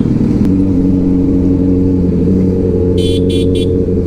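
TVS Apache RR 310's single-cylinder engine running at a steady cruise under way, rising slightly in pitch in the first half second and then holding. About three seconds in come three short, high-pitched beeps.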